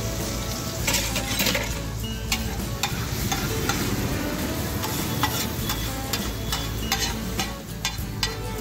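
Chopped onion, tomato and capsicum sizzling on a flat tawa griddle, while a steel spatula stirs them and repeatedly clicks and scrapes against the metal plate. The sizzle is loudest about a second in.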